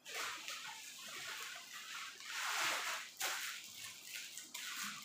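Plastic packaging crinkling and rustling as a packet of clothing is handled, coming in repeated swells.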